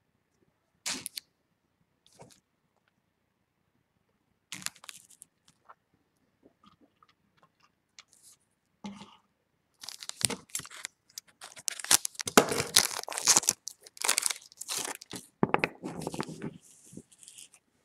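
Trading cards and their pack wrappers being handled: a few faint clicks and rustles, then from about ten seconds in a dense run of crinkling and crackling.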